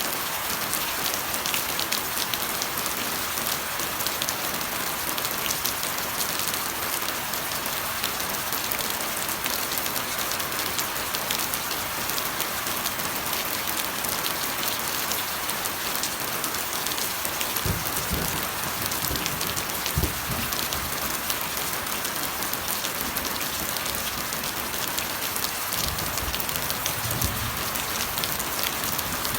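Steady heavy rain pattering, dense with fine drop ticks. A few brief low rumbles come through in the second half.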